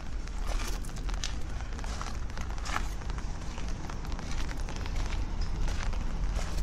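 Rain falling: many irregular drop ticks over a steady hiss.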